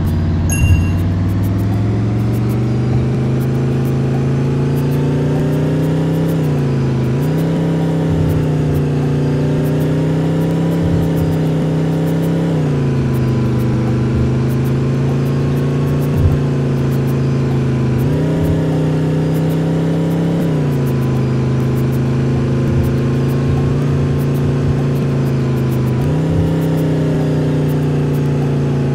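Bus engine running under load, its pitch climbing and dipping several times as the revs change, with a few knocks and light rattles.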